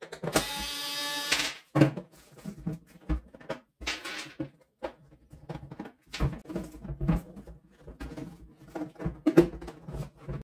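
Small cordless screwdriver running for about a second as it backs out a screw, a steady whirr. It is followed by scattered clicks and knocks of screws and plastic parts being handled.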